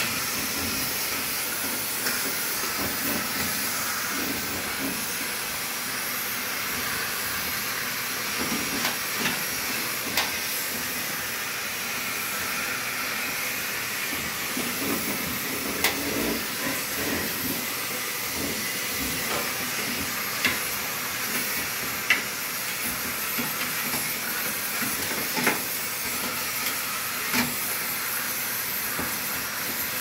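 Vacuum cleaner running with its flexible extension hose fed down a clothes dryer's lint-filter slot: a steady suction hiss, with several short sharp clicks and knocks spread through it as the hose works inside the duct.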